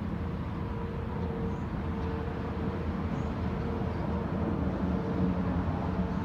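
Steady low hum of an idling truck engine, with a faint even drone held on top.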